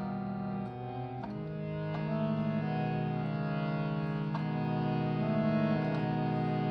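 Slow, meditative instrumental music: long held, wavering notes over a steady drone, with a few sharp plucked notes.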